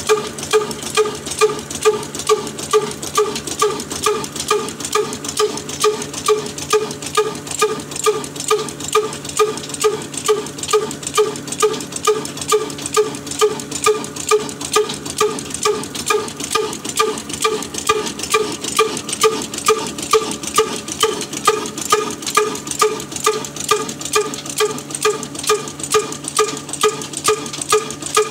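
Slow-speed stationary diesel engine of a flour mill running steadily, its firing beat coming evenly about twice a second, each beat with a ringing metallic knock.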